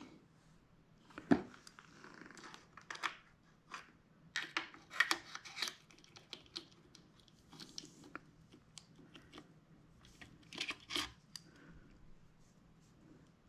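Light, irregular clicks, knocks and short scrapes of a red dot sight's mount being handled and worked onto a Mossberg 590M shotgun's Picatinny rail. One sharp knock comes about a second in.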